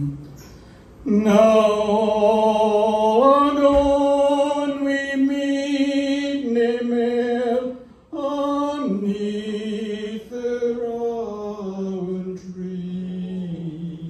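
A solo male voice singing a slow Scottish folk song unaccompanied, in long held notes that step up and down in pitch, with brief pauses for breath just after the start and again about midway.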